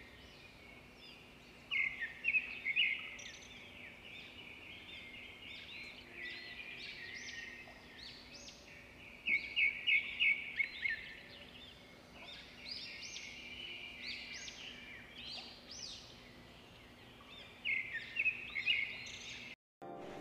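Small birds chirping in quick clusters of short high calls, loudest about two seconds in, around ten seconds and again near the end, over a faint steady background hum. The sound cuts off just before the end.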